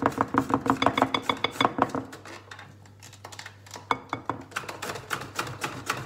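Wire whisk beating cake batter in a glass mixing bowl, its wires clacking against the glass about seven times a second. The beating stops about two seconds in and picks up again near four seconds with slower, softer strokes.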